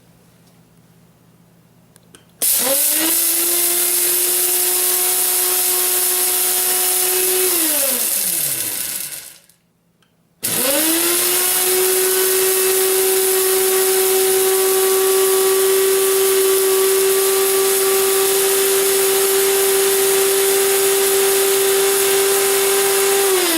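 Hercules Elite blender motor grinding dry peppercorns in two runs. It spins up sharply about two seconds in, runs at a steady high whine for about five seconds, then winds down with falling pitch. After a second's silence it starts again and runs steadily for about thirteen seconds before winding down at the end.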